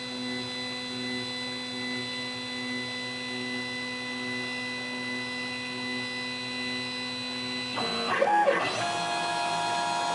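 Stepper motors of a Sieg KX1 CNC mill whining with a steady pitch as the machine drags a knife through laminated film. About eight seconds in, the whine changes to a different, busier set of tones as the head changes its motion.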